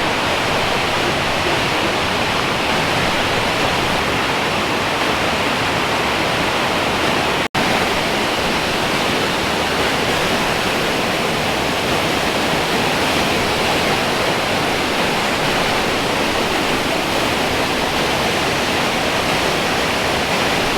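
Loud, steady rush of water cascading down a waterfall, an even wash of sound with no pauses, so loud that a voice is drowned out. It cuts out for an instant about seven and a half seconds in.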